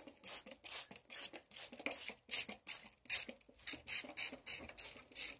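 Hand spray bottle squirted over and over in short hissing spritzes, about three a second, misting freshly sown seeds to wet them and hold them down.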